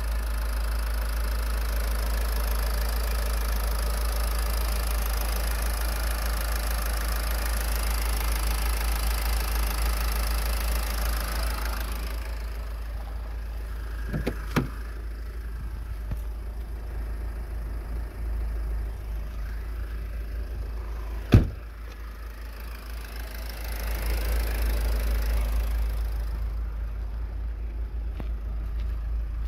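Renault 2.0 dCi M9R four-cylinder turbodiesel idling steadily, heard close over the open engine bay. Two sharp knocks come around the middle, the second the loudest.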